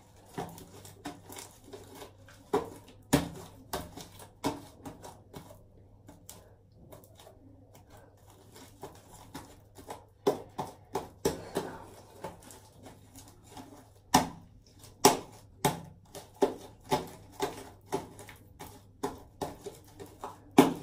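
Homemade slime being kneaded and worked by hand while it is still sticky: a run of irregular sticky slaps and squelches, a couple a second, sparser for a few seconds in the middle and then quickening after about ten seconds.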